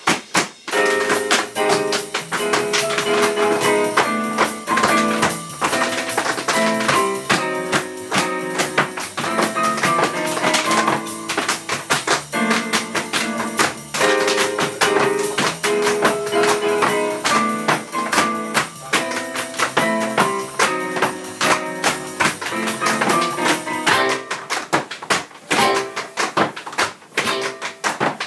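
Music: a plucked melody over fast, dense tapping percussion in a flamenco-like style. Near the end the melody drops out, leaving mostly the rapid taps.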